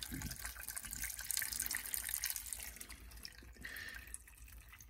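Chicken broth pouring from a can into a pot of potatoes and carrots, splashing and trickling over the vegetables, tapering off after about three seconds.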